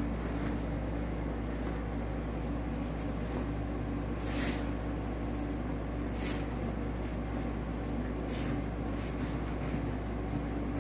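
Steady machine hum, with a few brief, soft swishes of a car seat cover being pulled down over the seat back.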